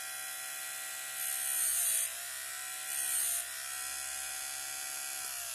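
Harbor Freight electric chainsaw-chain grinder running with a steady whine, its wheel ground into a chain tooth twice with a bright rasping hiss and a slight dip in motor pitch each time. Near the end it is switched off and its whine falls away. The grind is landing in the tooth's radius rather than on the cutting edge.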